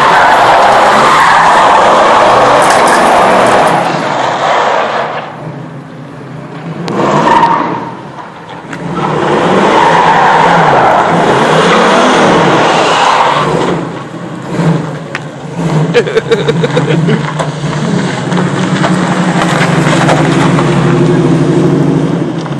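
Oldsmobile Cutlass with a bored 355 Chevy small-block V8 doing a burnout: the rear tires squeal loudly under high revs, drop away briefly around five seconds in, then squeal again for a second long spell. In the last third the tire noise gives way to the V8 running at low revs as the car rolls, with a few sharp pops.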